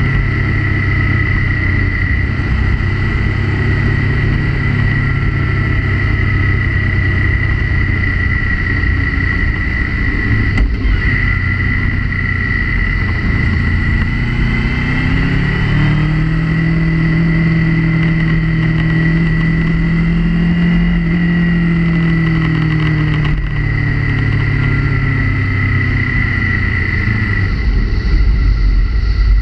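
Motorcycle engine running under load with a steady low rumble of wind and road noise and a steady high whine. The engine note climbs about halfway through, holds for several seconds, then drops back.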